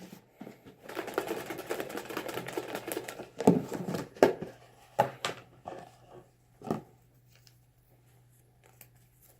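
Paper raffle tickets rustling as they are stirred and mixed by hand, followed by several sharp knocks and taps.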